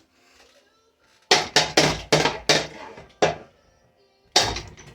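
A quick, irregular run of sharp knocks and clatters, about seven in two seconds, then one more near the end: a Hampton Bay Quick Connect ceiling fan being struck.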